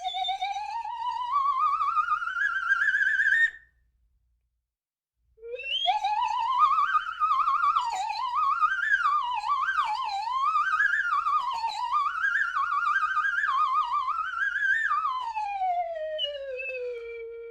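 Cartoon slide whistle with a fast warble. It first slides steadily upward for about three and a half seconds, then stops. After a short gap it swoops rapidly up and down for about ten seconds, then slides down to a low held note near the end.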